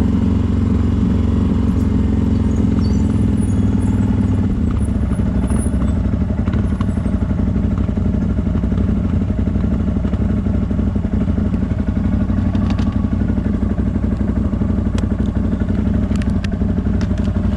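CFMoto 1000 ATV's V-twin engine running steadily, with a few sharp clicks and knocks in the second half.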